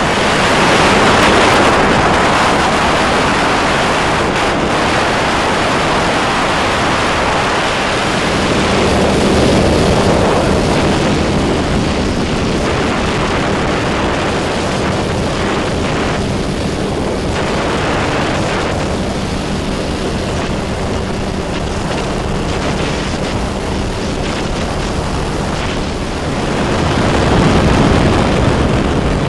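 Weight-shift microlight trike in flight: its engine running steadily under a heavy rush of wind on the microphone, the wind swelling louder a few times.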